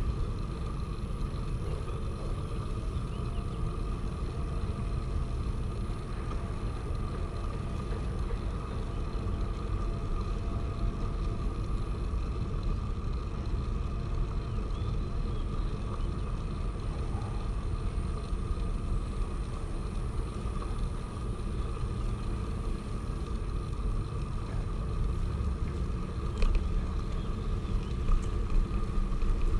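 Steady rumble of a moving bicycle ride: tyre and wind noise, with a couple of short sharp knocks near the end.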